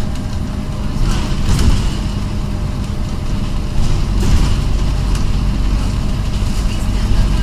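Inside a Scania OmniCity N230UD double-decker bus on the move: its 9-litre five-cylinder diesel runs with a steady low drone under road noise, with a couple of brief sharper sounds about one and a half and four seconds in.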